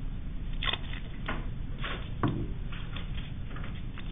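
Short crackling rustles and clicks of a small piece of masking tape being pulled and handled in the fingers, with a louder soft thump about two seconds in. A steady low hum runs underneath.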